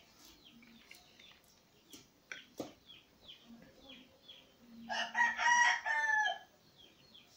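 A rooster crows once, about five seconds in, lasting about a second and a half. Small birds chirp throughout, and there are a couple of sharp clicks around two seconds in.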